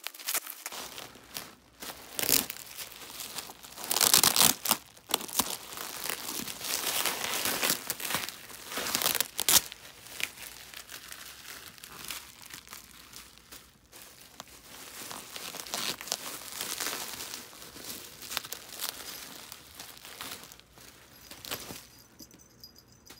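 Plastic bubble wrap being cut and bunched up by hand: irregular crinkling and crackling, loudest about four seconds in, dying away near the end.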